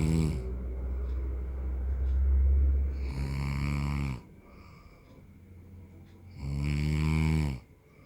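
A man snoring in his sleep: a long snore that ends about four seconds in, its pitch dropping at the end, then after a short quieter breath a second snore about six and a half seconds in.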